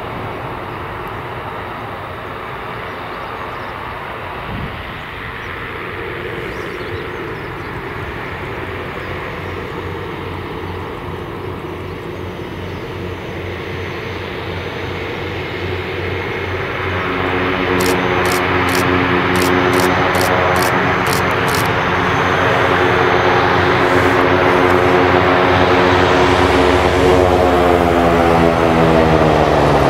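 Cessna 425's twin Pratt & Whitney PT6A turboprop engines running at taxi power, getting louder about halfway through as the aircraft turns toward the listener. In the last few seconds the engine tone drops in pitch as the engines wind down on stand.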